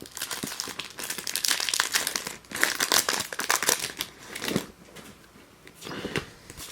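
Foil Pokémon TCG booster pack wrapper crinkling as it is torn open by hand: dense crackling for about four seconds, then a few sparser rustles.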